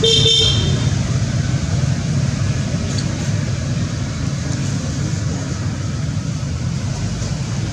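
Steady low rumbling outdoor background noise. A short high-pitched squeal sounds at the very start.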